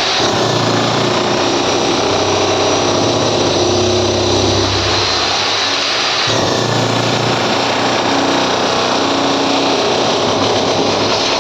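A power tool running steadily, with an abrupt change in its sound about six seconds in.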